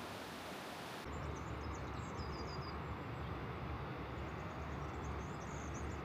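Rushing river water, an even hiss, for about the first second; then an abrupt cut to open-air ambience of small birds chirping over a low rumble.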